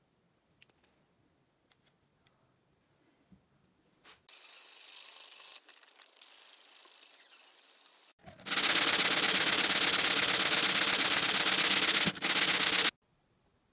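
Rusty steel needle-nose pliers being rubbed by hand against sandpaper to take off the rust: a loud rasping of sanding, first in a short stretch about four seconds in, then in broken strokes, then continuously from about eight and a half seconds until shortly before the end. Before that, a few faint clicks of the pliers being handled.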